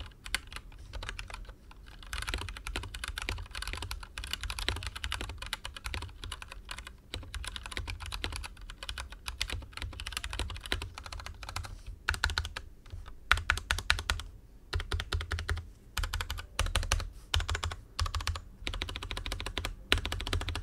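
Typing on an Anne Pro 2 60% mechanical keyboard with Gateron Brown tactile switches: quick runs of keystrokes with short pauses, a few strokes standing out louder about twelve to fourteen seconds in. No rattle from the stabilised wide keys.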